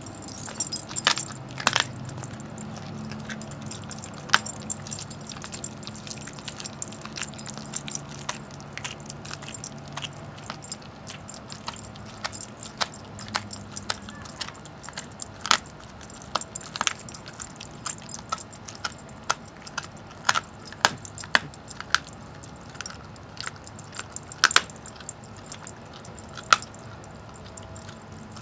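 A greyhound gnawing a raw turkey leg: irregular sharp cracks and crunches of teeth on bone, with the metal tags on his collar clinking as his head works.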